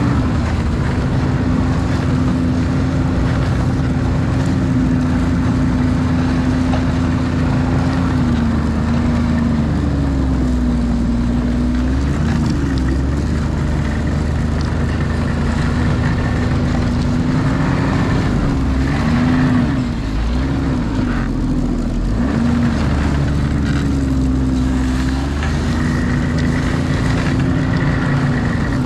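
Snowmobile engine running under way, its pitch dipping and rising again several times in the middle as the throttle eases off and opens.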